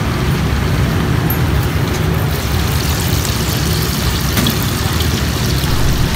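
Steady street traffic noise, a continuous low rumble of passing vehicles.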